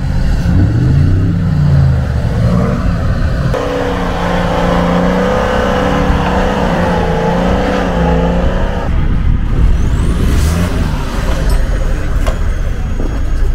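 Off-road 4x4 engines revving up and easing off over and over, with the sound changing abruptly twice.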